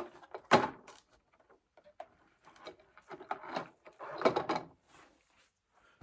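A monofilament cast net being pulled out and handled, making rustling and knocking noises: a sharp loud one about half a second in, and a longer run of scraping and rustling from about three to four and a half seconds.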